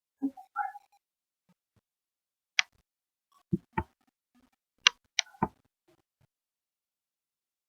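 Sharp light clicks and taps of small objects being handled and set down: a short cluster right at the start, then six single clicks between about two and a half and five and a half seconds in.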